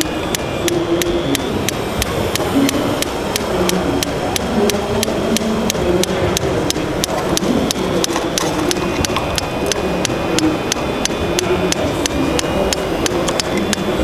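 Hydraulic breaker hammer on a radio-controlled model excavator chattering against the ground, a steady rapid run of sharp clicks about four a second. A murmur of hall background noise sits behind it.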